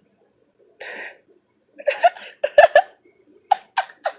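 A person's non-speech vocal sounds: a breathy exhale about a second in, then two runs of short, clipped vocal bursts.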